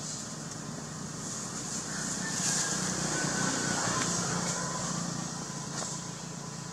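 Steady outdoor background noise: a low hum with a high hiss above it.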